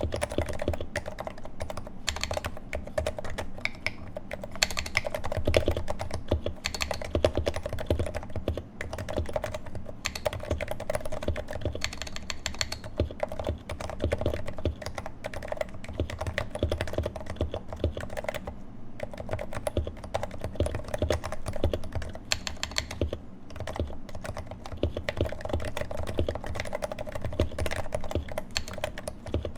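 Steady, fast typing on a Leopold FC660C Topre (electrostatic capacitive rubber-dome) keyboard with 55 g domes, its sliders swapped for Novatouch sliders lubed with Tribosys 3204 and fitted with Silence-X rings under GMK keycaps. The keystrokes run as a dense, continuous patter of short, low-pitched clacks.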